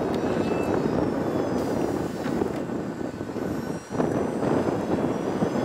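The 1/5-scale F-16 model jet's engine running steadily, a constant rushing noise with a faint high whine above it, dipping briefly near the end.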